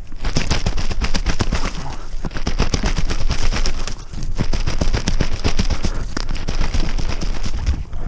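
Rapid, continuous goose honks and clucks, loud and close, with short breaks about two and four seconds in.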